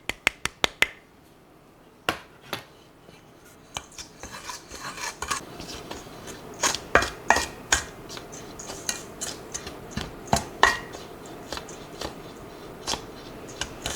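Kitchen utensils clinking against a mixing bowl: a quick run of light clicks at the start, then from about four seconds a steady scraping and rustling with frequent taps as dry baking ingredients (flour, brown sugar, spices) are worked in the bowl.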